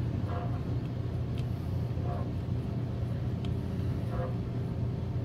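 Washing machine running with a steady low hum and a soft swishing surge about every two seconds. Two light clicks, about a second and three seconds in, come from a screwdriver working a small screw.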